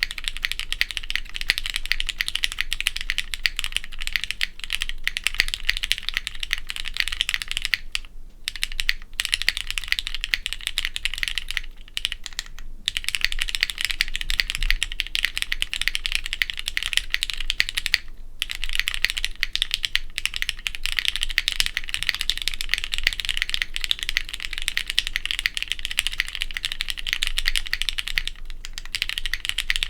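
Rapid, continuous typing on a Studio Kestra Nue plateless 60% mechanical keyboard with broken-in, stem-lubed Cherry MX Black linear switches and GMK Perestroika keycaps, broken by a few brief pauses.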